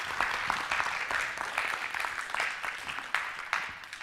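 Audience applauding, slowly growing quieter toward the end.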